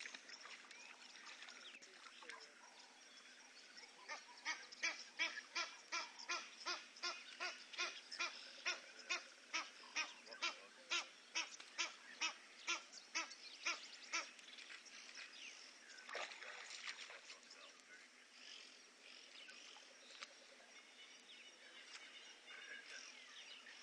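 An animal calling in a rapid, even series of pitched calls, about two and a half a second, starting about four seconds in and lasting some ten seconds. A shorter, fainter sound follows a couple of seconds later.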